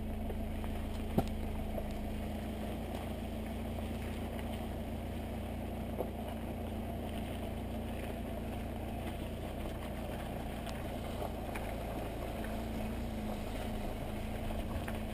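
Steady drone of a motor vehicle engine running at low revs, with a sharp knock about a second in and a lighter one about six seconds in.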